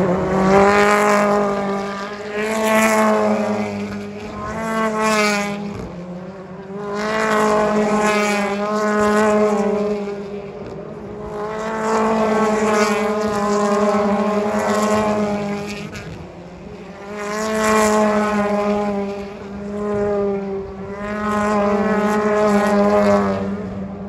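A stream of BTCC touring cars, turbocharged four-cylinder engines, passing one after another through a chicane. The engine notes swell and fade every two to three seconds as each car goes by.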